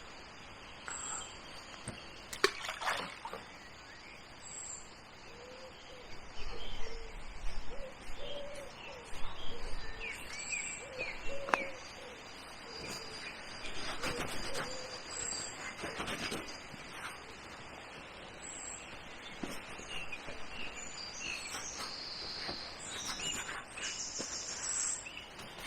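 Several birds calling and singing, with short high chirps repeating throughout and a run of lower calls around the middle. A few sharp clicks or knocks stand out over the steady outdoor background.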